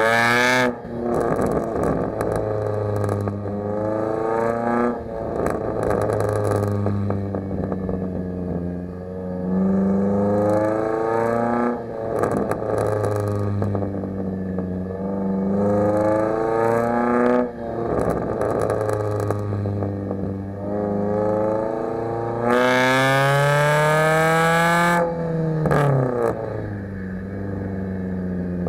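The four-cylinder engine and exhaust of a 2011 Kia Forte EX revving. The pitch climbs for several seconds and then drops sharply, about five times over, with short crackles and pops from the exhaust where the revs fall. One louder, harsher climb comes near the end.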